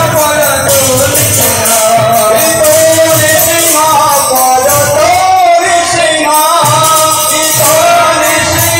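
Devotional singing over jingling percussion that keeps a steady beat; loud, with the sung melody rising and falling.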